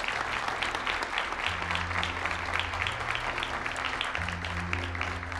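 Audience applauding, a dense patter of many hands clapping, over soft background music with low held notes.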